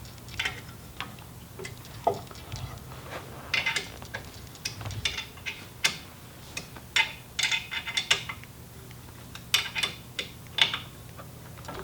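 Irregular metal clicks and clinks of a 6 mm Allen wrench tightening the pivot bolt and washers on a Bowflex LateralX LX3 leg joint, some in quick clusters.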